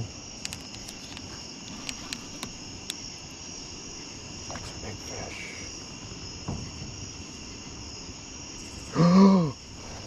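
A steady night chorus of crickets, a continuous high trill, with a few faint clicks in the first seconds. About nine seconds in, a man gives one short, loud, wordless exclamation.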